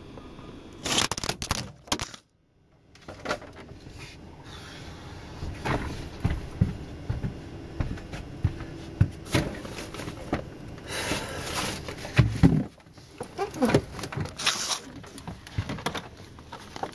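Camera handling noise: rustling, scraping and irregular knocks as the camera is picked up and moved about, with a brief cut-out about two seconds in.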